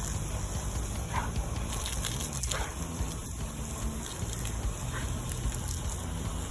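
A dog making a few short, high-pitched sounds over a steady low rumble.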